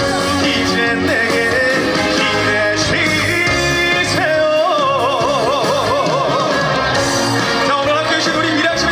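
Live trot song played loud on stage: a band with a melody line that is held and wavers widely in pitch (a heavy vibrato) in the middle.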